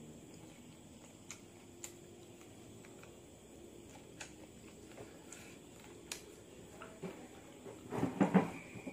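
Quiet eating of chicken feet: scattered small wet mouth clicks from chewing and sucking at the skin and bones. About eight seconds in comes a short, louder cluster of knocks and rustling.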